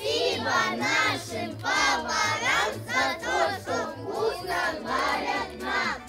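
Background song: children singing a melody over a steady, regular bass beat.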